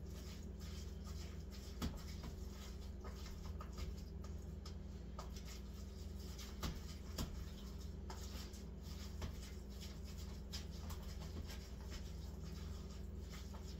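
A fork mashing and scraping chicken salad in a plastic container: scattered soft clicks and scrapes over a steady low hum.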